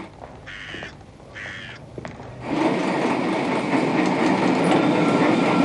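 Electric tram running on street rails. It starts quieter, with two short high-pitched calls. From about two and a half seconds in, a steady, louder rumble and rattle of wheels on the track takes over.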